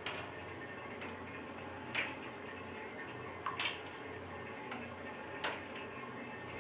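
Water in a bathtub: a handful of sharp drip-like plinks, about one every one to two seconds, over a steady low hiss.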